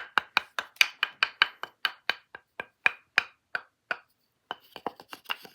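Rapid, even tapping on a hollow-sounding wooden object, about four to five taps a second, each tap ringing briefly. The tapping stops for about half a second around four seconds in, then picks up again more lightly.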